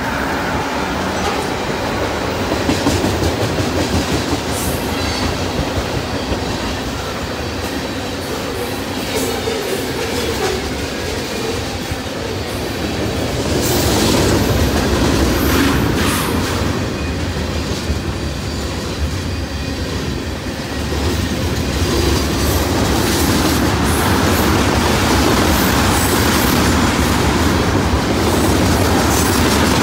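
CN freight train of tank cars rolling past: a steady rumble of steel wheels on the rails with scattered clicks. The trailing locomotive goes by first, and the sound grows louder about halfway through.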